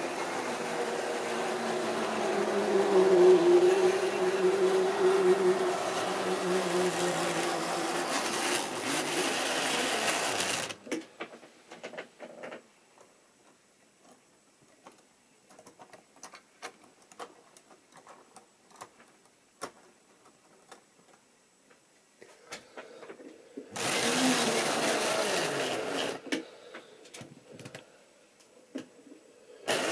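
Small electric motor of an OO gauge model railway locomotive whirring as it runs on the track; it cuts off about eleven seconds in. Scattered light clicks and knocks follow as the model is handled on the rails. The motor whirs again briefly about two-thirds through and starts up again at the very end.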